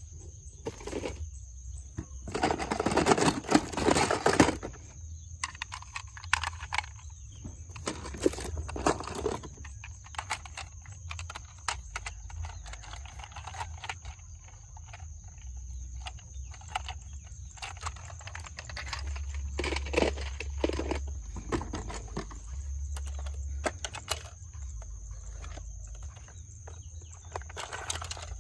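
Plastic toy cars being handled and moved about: irregular clicks, knocks and scrapes, with a louder stretch of rattling about three to four seconds in.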